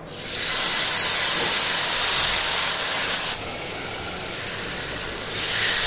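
Marinated chicken breast sizzling as it hits hot oil in a seasoned cast-iron skillet, a loud, steady hiss that starts the instant the meat goes in. It eases slightly a little past halfway, then flares up again near the end.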